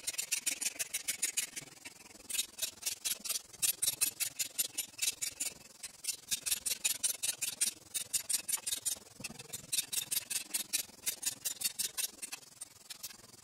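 Hand socket ratchet clicking rapidly in runs, with short pauses between, as ring gear bolts are run down into a differential case.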